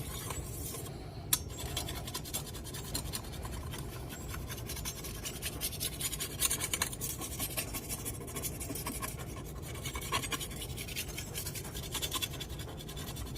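A small hand-held red jasper sharpening stone scraping along a carbon-steel machete blade in rapid, short back-and-forth strokes. This is the stone-on-steel rasp of honing the edge at a fine grit.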